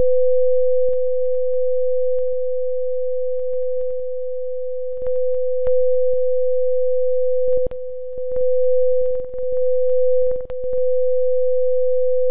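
Steady electronic sine tone at about 505 Hz from a two-speaker interference simulation. It grows quieter and louder several times as the virtual listener is moved between quiet and loud spots of the interference pattern, with a few faint clicks where the level jumps.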